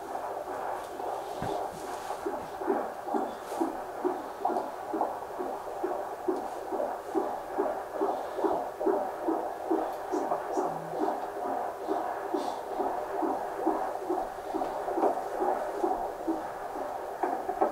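Unborn baby's heartbeat picked up by a handheld fetal Doppler and played through its speaker: a fast, even pulsing, about two and a half beats a second, as the baby's heart rate is checked during labour.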